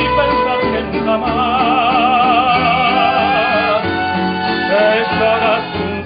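Mariachi band playing a slow serenade: violins and guitars over a guitarrón bass, with a regular strummed beat under a wavering, vibrato-laden melody, and a male voice singing the lead.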